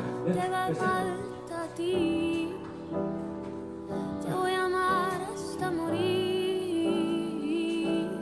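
Background music: a slow, tender song with a voice singing long, held notes over instrumental backing.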